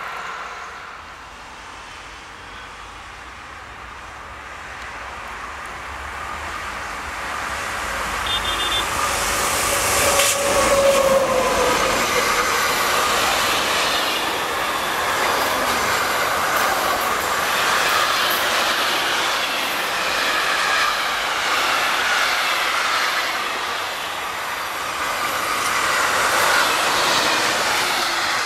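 A long freight train of container and swap-body flat wagons passes close by on the line. It grows louder over the first ten seconds, with a falling tone as the head of the train draws level. Then comes the steady rolling and clatter of wheels on rails as the wagons go by.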